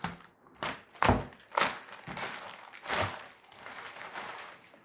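Plastic courier mailer bag being torn open and crinkled, with a cardboard box sliding out of it; irregular rustles and crackles, the loudest a dull knock about a second in.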